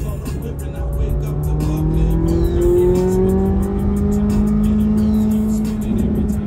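C8 Corvette Z06's 5.5-litre flat-plane-crank V8 pulling in third gear, heard from inside the cabin, its pitch rising slowly as the car gathers speed.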